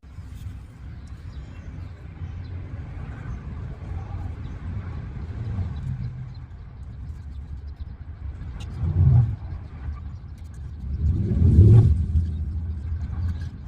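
Low rumble of passing road traffic, with two louder vehicle pass-bys about nine and twelve seconds in.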